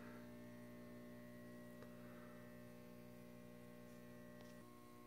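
Near silence with a faint, steady electrical mains hum of several even tones, thinning a little about four and a half seconds in.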